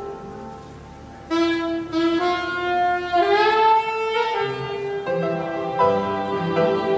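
Saxophone and upright piano playing a slow duet. After a soft held passage, the saxophone comes in loudly about a second in with a melody that slides up in pitch, and piano chords fill in underneath in the second half.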